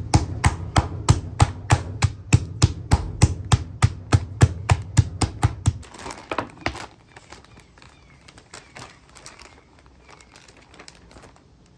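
A metal meat mallet pounding a chicken breast flat inside a zip-top plastic bag on a wooden table, about three or four blows a second, stopping about six seconds in. Then the plastic bag crinkles as it is peeled away, with faint rustling after.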